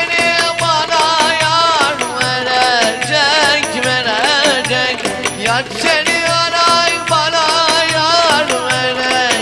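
Turkish folk dance music: electric bağlama and keyboard play a winding, ornamented melody over a steady drum beat.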